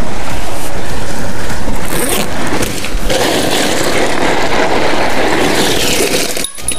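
Steady wind noise on the microphone, with scraping and rustling as a backpack is unzipped and rummaged through.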